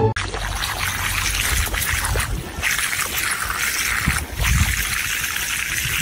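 Water trickling and spraying from a garden hose nozzle, a steady hiss with a low rumble underneath.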